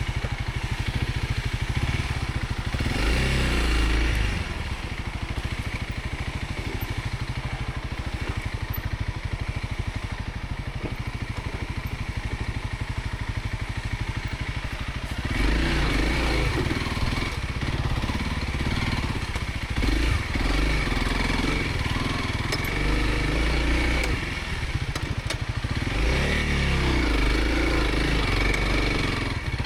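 Dual-sport motorcycle engine running on an off-road trail, the throttle opening and closing, with a brief surge a few seconds in and louder riding from about halfway through.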